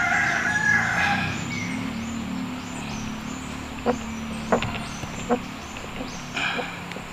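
A rooster crowing, the crow ending about a second in. Three sharp clicks follow a few seconds later.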